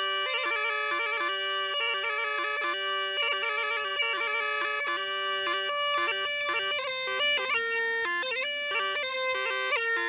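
Background bagpipe music: a quick-stepping tune over a steady drone.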